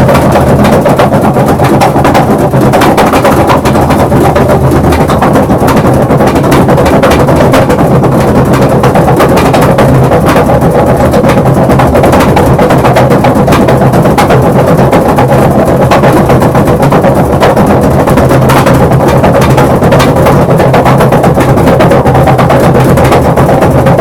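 Maytag 3000 series washing machine running with a loud, continuous rapid rattling over a steady hum: an abnormal noise that has grown more pronounced over time.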